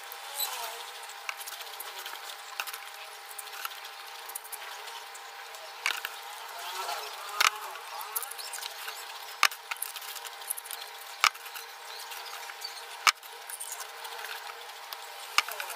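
Potato chips crunching as they are chewed quickly, with sharp crunches every couple of seconds over a steady background hiss.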